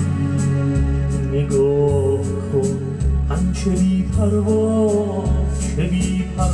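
Electronic arranger keyboard playing a pop song intro: a drum-machine beat with a steady hi-hat, a bass line changing note about once a second, sustained organ chords, and a wavering lead melody that comes in about a second and a half in.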